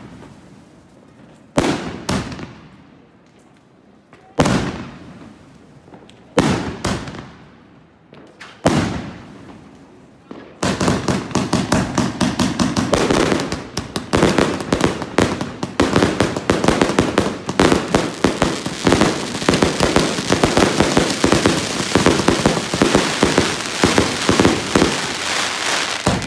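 'Tears of Hell' CNY305CB 305-shot fireworks cake firing. First come about five separate loud bursts a second or two apart, each trailing off. From about ten seconds in, a rapid, unbroken barrage of many shots and crackles runs on.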